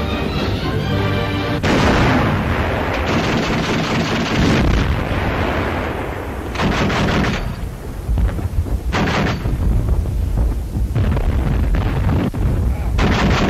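Field gun firing at attacking tanks: a sudden heavy bang about a second and a half in with a long rumbling decay, then several more shots at intervals of a couple of seconds.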